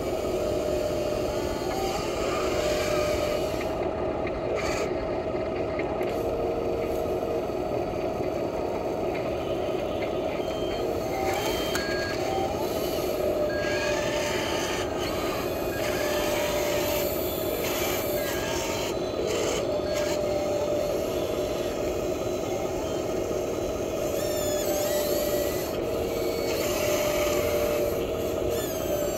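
Small electric motors and gearboxes of radio-controlled toy construction machines, a wheel loader and bulldozer, running with a steady grinding rasp, with short motor whines that switch on and off and change pitch as the machines move and work their buckets.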